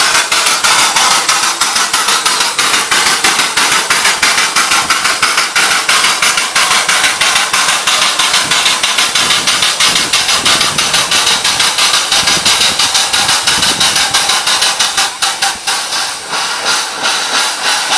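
Steam locomotive 'River Irt', a 15-inch-gauge 0-8-2, hissing loudly as steam escapes around its cylinders, with a rapid, even fluttering pulse through the hiss. The hiss eases and turns uneven about fifteen seconds in.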